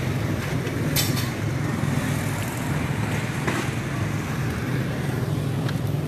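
Quarter midget race car engines running out on the track, a steady drone without a break, with two short clicks about a second and three and a half seconds in.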